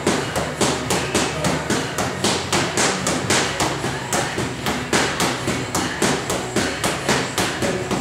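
Background music with a fast, even pounding beat, about four hits a second, over a steady low tone.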